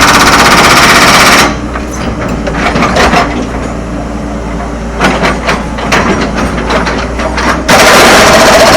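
A rock breaker hammering on rock in rapid, continuous blows. It stops about one and a half seconds in and starts again near the end. Between, an engine runs steadily, with scattered sharp clinks.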